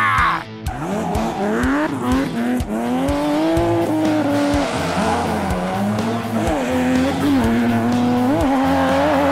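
Car engine revving sound effect, its pitch rising and falling again and again, over background music with a steady beat.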